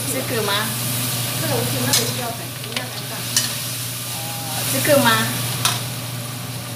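Food frying in a wok over a gas burner, with a steady sizzle, while a metal spatula stirs and scrapes the pan, clicking against the wok a few times.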